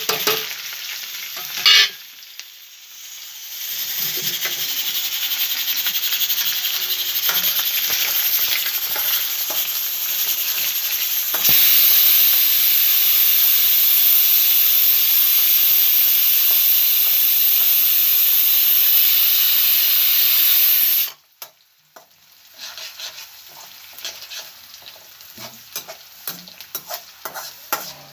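A tadka of garlic, onion and curry leaves sizzling in hot oil, with a spoon stirring in the pan. The sizzle gets louder about a third of the way in, then cuts off suddenly, leaving a spoon clinking and scraping against the pan.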